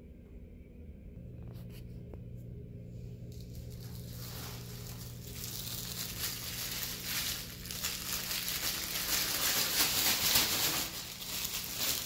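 Thin white plastic bag being crinkled and rustled in the hands. It starts a few seconds in and grows louder toward the end.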